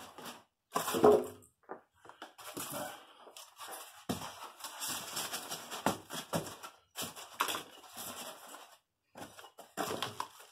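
Styrofoam packing blocks and a cardboard box being handled: irregular scraping, rubbing and knocks as the foam is pushed into place around the packed stereo. The loudest scrape is about a second in.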